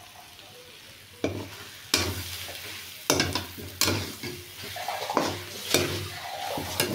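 Perforated steel spatula scraping against a kadhai (wok) as chicken fried in masala is stirred, about seven sharp scrapes starting a little over a second in, with the frying sizzling between them.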